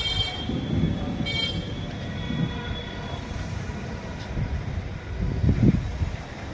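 A horn sounds two short toots, the second about a second after the first and fading away, over a steady low rumble.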